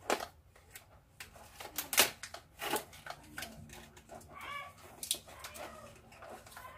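Handling of a boxed yoga mat: a series of knocks and rustles of cardboard and plastic packaging, loudest about two seconds in, with a short squeaky tone about four and a half seconds in.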